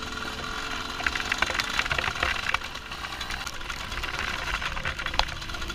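Trail dirt bike engine running as it is ridden over a rough dirt track, with scattered clicks and knocks through the run.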